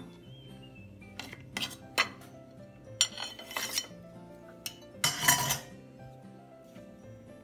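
Metal cake server scraping and clinking on a glass cake plate and a porcelain dessert plate as a slice of frozen ice cream cake is cut and served: a series of short clatters, the loudest a little over five seconds in, over background music.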